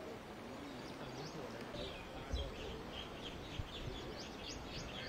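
Small birds chirping in a quick run of short high notes from about two seconds in, over a low steady outdoor background noise.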